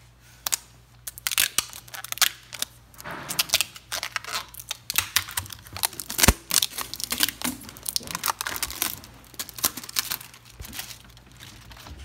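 Plastic protective film and wrapping on a new display case crinkling and crackling as it is handled, in irregular bursts, with one sharper knock about six seconds in.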